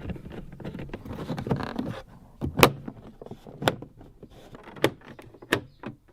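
Sharp knocks and clicks of plastic trunk trim panels being pressed and fastened into place in a Volvo 850 estate's load area, a handful of separate knocks with handling noise between them.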